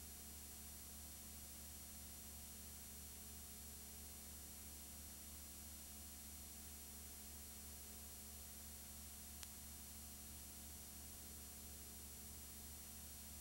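Near silence: a steady low electrical hum and hiss, with one faint click about nine seconds in.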